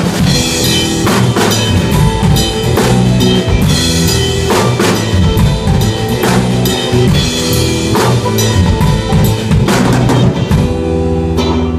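Blues band playing an instrumental passage with no vocals, the drum kit to the fore: bass drum, snare and cymbals over sustained pitched instruments. About a second before the end the cymbal wash drops away and the steadier low notes come through.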